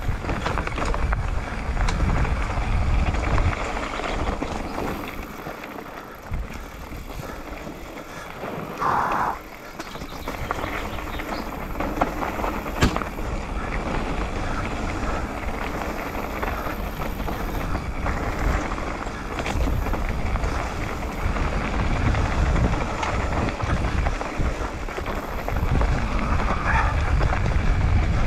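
Mountain bike descending a rocky dirt singletrack: tyres rolling and rattling over dirt and loose stones, with a steady rush and rumble of wind on the camera microphone. A single sharp knock about halfway through.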